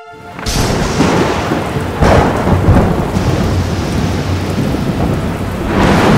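Thunderstorm: steady heavy rain with rumbling thunder. It starts suddenly about half a second in, and the thunder swells around two seconds in and again near the end.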